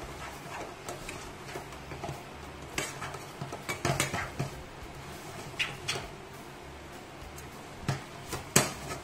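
Spatula stirring and scraping noodles in a frying pan, giving irregular clicks and scrapes against the pan, the sharpest knock near the end.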